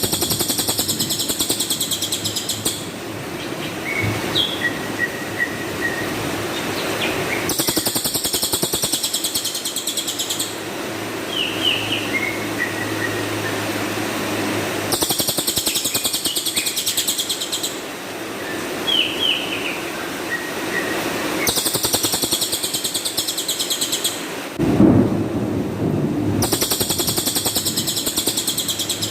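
Cililin songbird giving bursts of very rapid, high-pitched trilled calls, each about three seconds long and repeated five times, with softer short chirps between the bursts. A steady low background noise runs underneath.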